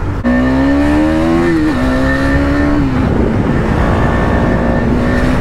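Single-cylinder motorcycle engine accelerating: the note climbs for about a second and a half, drops back at a gear change, holds, drops again about three seconds in, then holds steady at cruising revs, over a constant low road and wind rumble.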